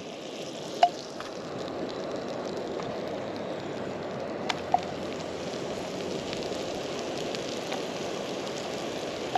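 Butter sizzling and foaming in a hot nonstick frying pan, a steady hiss, with sliced porcini mushrooms going into the pan partway through. A few short sharp clicks stand out, about a second in and twice a little past the middle.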